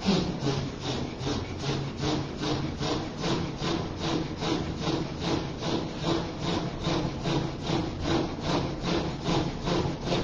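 A man's rhythmic, forceful breathing in Sufi heart zikr (zikr qalbi): a rasping breath about two and a half times a second, starting suddenly and keeping an even pace, over a low steady hum.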